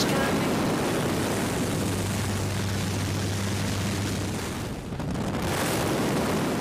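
Wind rushing through the open door of a skydiving plane in flight, over the steady low drone of its engine; the rush dips briefly about five seconds in.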